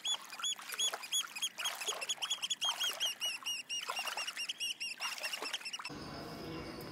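Many small birds chirping: quick, repeated high arched notes that overlap. They cut off about six seconds in, giving way to a low, steady background noise.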